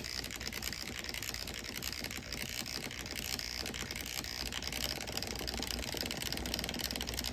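HO scale Model Power RS2 diesel model locomotive running slowly on its track: the steady whir of its small electric motor and gears with a fine rapid clicking. It runs poorly at slow speed, a problem the owner hopes a new motor will cure.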